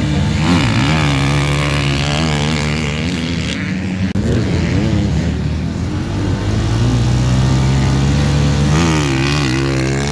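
Four-stroke motocross bike engine revved in short blips, then held at high revs and let go as the bike launches off the start near the end.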